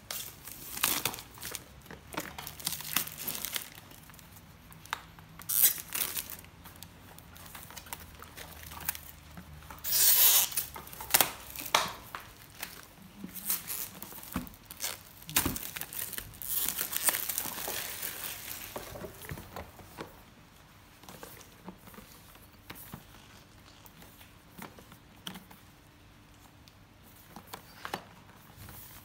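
Clear plastic shrink wrap being torn and peeled off a cardboard product box, crinkling and crackling, with the box being handled. The loudest tearing comes about ten seconds in, a longer stretch of crinkling follows a few seconds later, and the last third is quieter handling.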